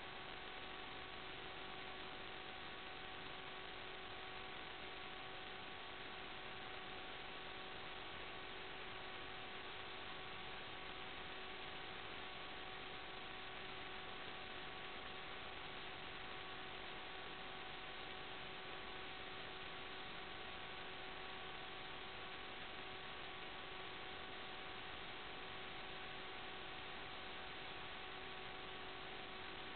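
Steady static hiss with a few faint, constant hum tones, unchanged while the plane's motor current swings from idle to full power: the empty audio channel of an analog FPV video link rather than the aircraft's motor.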